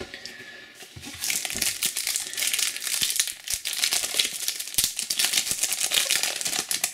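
A foil trading-card pack (Topps Slam Attax 10th Edition) being crinkled and torn open by hand: a dense run of crackling and ripping foil starting about a second in.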